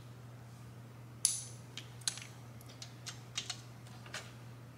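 Sharp metallic clicks and clinks of a torque wrench and socket being fitted and worked on the cam sprocket bolt of a Harley-Davidson Twin Cam cam chest, the loudest clink about a second in, followed by a run of smaller clicks.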